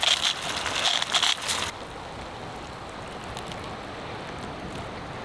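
Frying pan of cherry tomatoes and fish sizzling with dense crackling, which stops abruptly about two seconds in; a quieter steady hiss follows.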